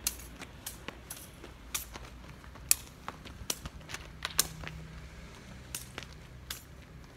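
Sharp, irregular clicks of a đá cầu shuttlecock being kicked back and forth by two players' feet, about a dozen strikes, the loudest almost three seconds in.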